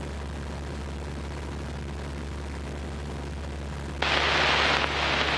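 Piper PA-17 Vagabond's engine droning steadily in flight, heard from the cockpit. About four seconds in, a loud burst of radio static cuts in suddenly as the aircraft radio opens for an incoming transmission.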